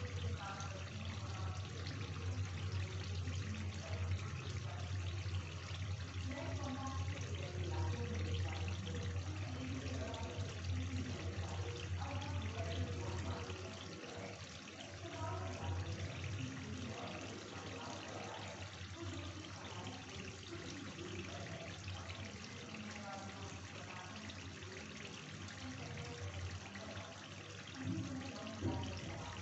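Chicken curry gravy simmering and bubbling in a kadhai on a gas stove as its water cooks off. A steady low hum runs underneath and fades about halfway through.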